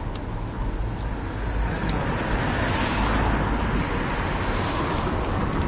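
Road traffic going by: a vehicle's noise swells and fades about halfway through, over a steady low rumble.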